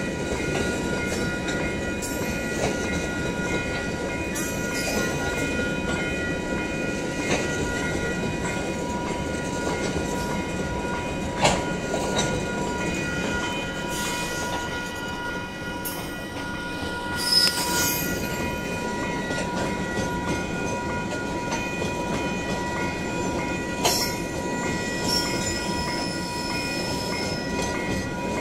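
Freight wagons of a long KiwiRail train rolling past, with a steady rumble and clatter of wheels on rail, a few sharp clicks as wheels cross the joints, and a steady high ringing tone throughout.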